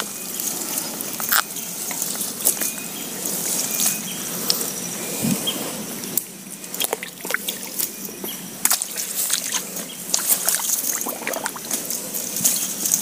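Water dripping and trickling, with many small scattered clicks and crackles.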